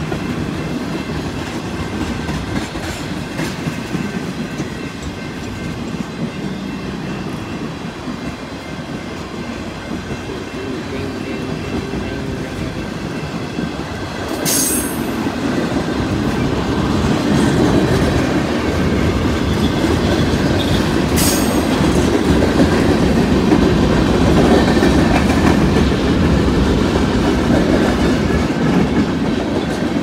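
Freight cars of a long manifest train rolling past close by: a steady rumble of steel wheels on rail with clickety-clack, getting louder about halfway through. Two brief sharp sounds stand out over it, about halfway and again some seven seconds later.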